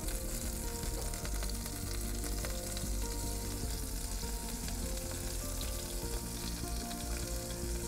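Butter and vegetable oil sizzling steadily in a hot frying pan as a ladleful of pancake batter is poured in.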